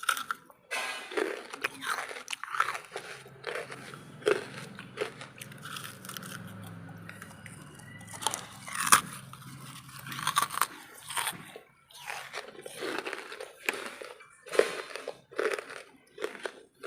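Pieces of wood charcoal bitten and chewed close to the microphone: a run of crisp, irregular crunches, with the loudest bite about nine seconds in.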